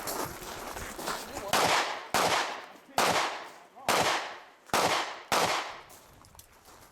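Six rifle shots fired in quick succession, a little under a second apart, each followed by a short echo.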